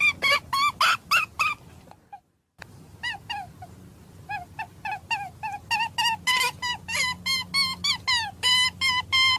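A rapid series of short bird calls, several a second, with a brief cut to silence about two seconds in.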